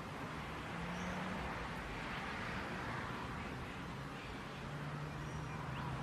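Steady rush of wind and rain in the trees, with a faint low hum about a second in and again near the end.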